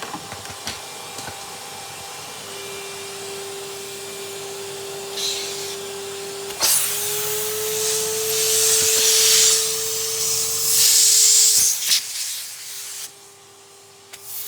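Vacuum cleaner running with a steady motor hum while its nozzle sucks at old nitrile gloves. A loud rushing hiss of air comes in surges through the middle, then dies away near the end while the motor keeps running.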